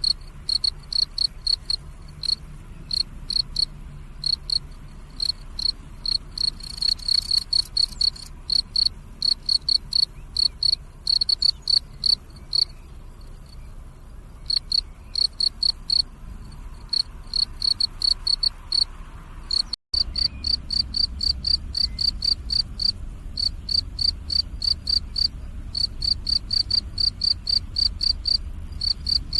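Male field cricket (dế mèn) chirping, a shrill note repeated in quick even trains with brief pauses. It cuts out for a moment about twenty seconds in.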